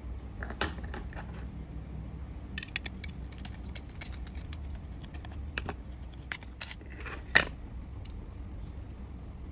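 Scattered small clicks and taps of plastic and metal as a screwdriver unscrews a 1:64 diecast model car from its plastic display base, with a quick run of clicks a few seconds in. One sharp click about seven seconds in is the loudest.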